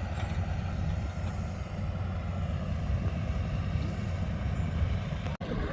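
Steady drone of motocross dirt bike engines running at a distance, several bikes blending into one even hum with no single machine standing out.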